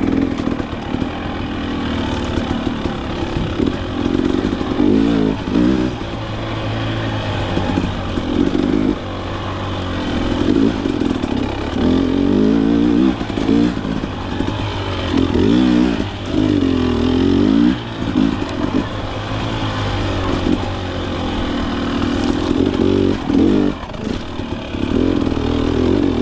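Husqvarna TX300 two-stroke dirt bike engine under way, its pitch rising and falling every second or two as the throttle is worked on and off along single track.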